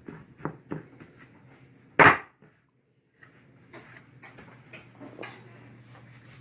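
Kitchen handling sounds while laying a crust over a pie: a few light knocks and clinks of dish and utensils, with one much louder bump about two seconds in.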